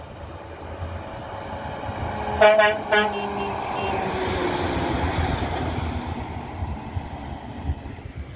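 Semi-trailer race-car transporter truck passing close by: its engine and tyres grow louder as it approaches, a quick series of short horn toots about two and a half seconds in, then the engine note slides down in pitch as it goes past and fades.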